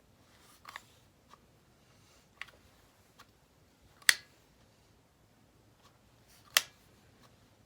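Sharp, separate clicks from handling and adjusting a Wheeler FAT torque screwdriver, a few seconds apart, two of them loud.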